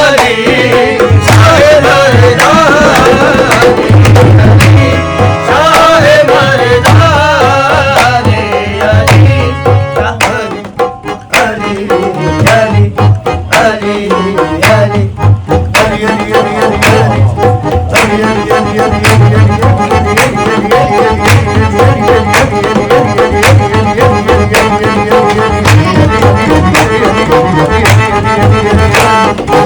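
Qawwali instrumental passage: tabla playing a steady rhythm under a harmonium melody, with a brief lull about eleven seconds in.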